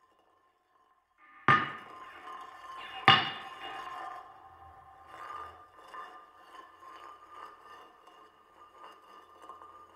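Struck, ringing percussion in an experimental soundtrack. After about a second of silence come two sharp strikes about a second and a half apart, each leaving a bell-like ringing tone. Softer, irregular taps follow over the ring as it fades.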